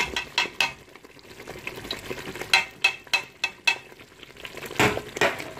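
A spoon stirring in a pot, scraping and knocking against its side in quick strokes with a short ring after each, over the sizzle of an onion and tomato base frying in oil as the spices are stirred in.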